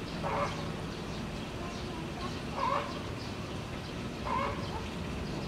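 An animal calling three times, a short call about every two seconds, over a steady low hum.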